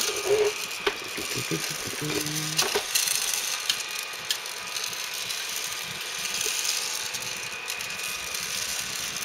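Gene Cafe coffee bean roaster running at the start of a roast: raw green coffee beans rattling as they tumble in its rotating drum, over the machine's steady whirring hiss. A few knocks in the first three seconds as the camera is set down.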